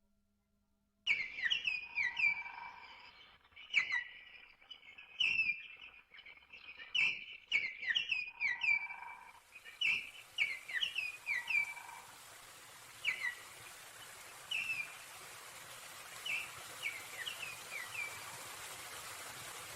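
Small birds chirping in a quick series of short, downward-sliding notes, starting about a second in. About halfway through, the steady rush of running water rises beneath them and grows, while the chirps thin out.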